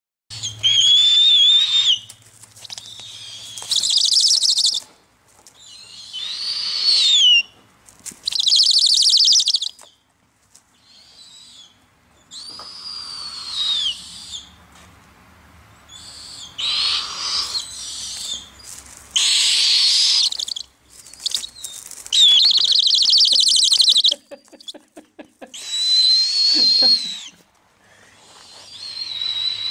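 Owlets calling over and over: shrill whistled calls that rise and fall, alternating with harsh, raspy screeches, about a dozen in all with short pauses between.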